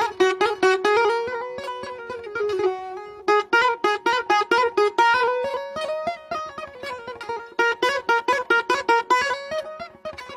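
Music on a plucked string instrument: a fast run of picked notes playing a short melody that rises and falls, thinning out briefly about two seconds in before the quick picking resumes.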